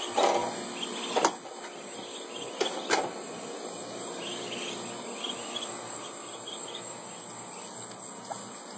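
A flock of ducklings peeping in many thin, high chirps. A few sharp knocks stand out in the first three seconds.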